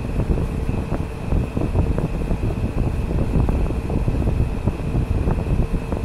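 Window air conditioner running close by: a steady fan hum with a high whine over it, and rushing air that buffets the microphone.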